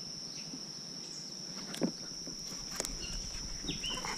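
Insects, crickets or similar, keeping up one steady high-pitched drone, with a few faint short chirps. Two sharp clicks about a second apart near the middle.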